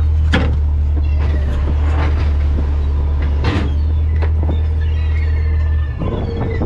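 A fishing boat's machinery running as a steady low drone that cuts off suddenly about six seconds in, with scattered knocks of deck work over it.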